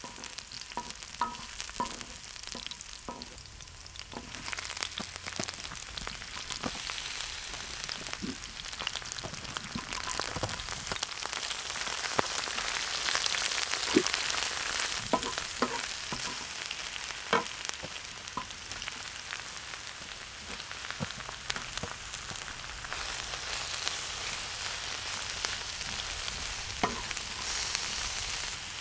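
Garlic and then mixed vegetables sizzling in hot oil on a cast-iron pot-lid griddle (sotttukkeong), stirred with a wooden spoon that knocks and scrapes against the metal. The sizzle grows louder about four seconds in and is strongest around the middle.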